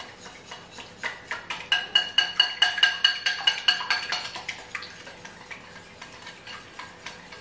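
Wire whisk beating eggs in a ceramic bowl: fast, even clinks of the whisk against the bowl, about five a second, with the bowl ringing on each stroke. The beating is loudest from about two to four seconds in, then goes on more softly.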